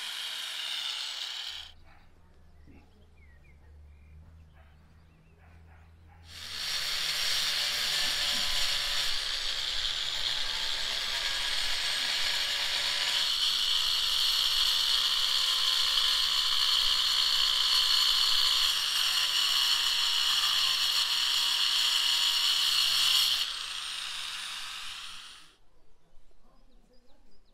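Corded electric power tool with a high-speed motor: it runs and stops about two seconds in, then starts again and runs steadily with a high whine before switching off and spinning down near the end.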